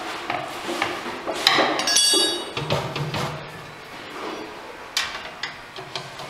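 Metal tools knocking and clinking against a pottery wheel's steel head. About two seconds in, a steel T-handle Allen key is set down on the floor and rings briefly; a few more sharp clicks come near the end.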